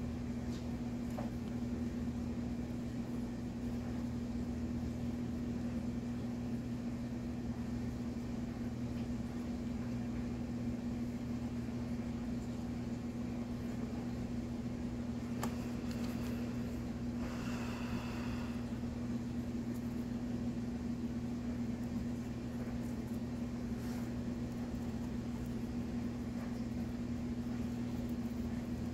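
A steady low machine hum with one constant tone, and a brief faint higher-pitched sound about seventeen seconds in.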